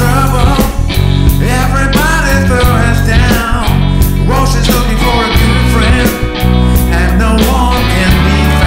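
Blues rock band music, with guitar over bass and drums, playing at a steady loud level.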